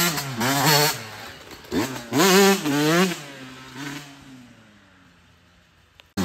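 Yamaha YZ125 two-stroke dirt bike revving hard as it rides past, the engine note climbing and dropping through several gear changes, then fading away into the distance over the last couple of seconds.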